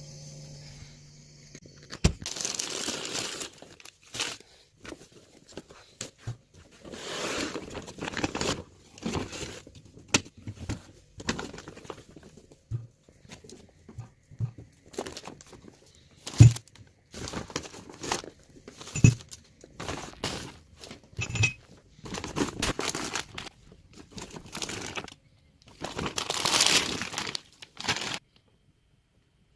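Kitchen handling sounds: plastic packaging crinkling and tearing in irregular bursts, with sharp clicks and a few knocks on a hard surface.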